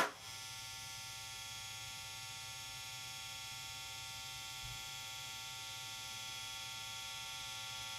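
Pioneer loudspeaker wired straight to a 120-volt wall outlet, buzzing steadily with mains hum as the AC current drives its coil.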